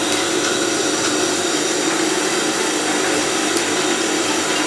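Electric clutch motor of a Typical industrial sewing machine running with a steady hum, the machine switched on but not stitching.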